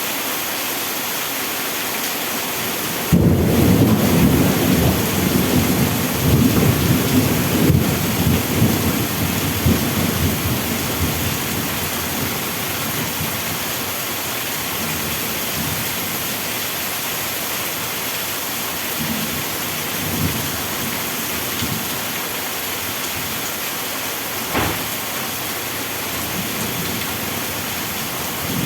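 Steady heavy rain hissing, with a sudden thunderclap about three seconds in that rolls on as a rumble and fades over the next several seconds. A fainter rumble of thunder follows later.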